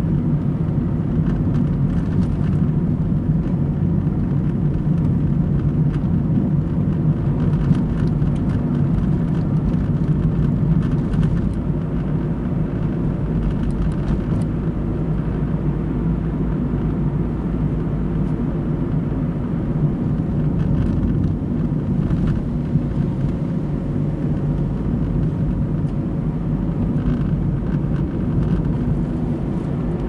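A car's engine and tyre noise while driving, a steady low drone with a few faint clicks.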